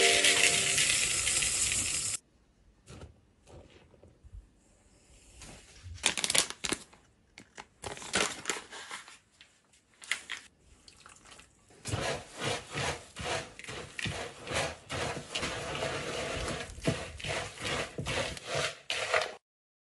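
Rolled oats poured into a mixing bowl, a dense rattling rush for about two seconds. After a few scattered light knocks, a spatula stirs the oat mixture in the bowl from about halfway through: rapid, repeated scraping and rubbing strokes that stop suddenly near the end.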